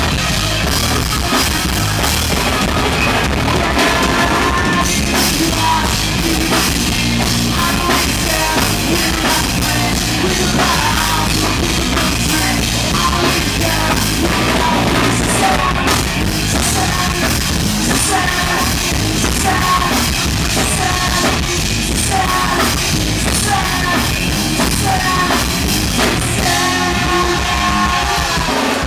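Rock music with a drum kit and a singing voice, loud and steady.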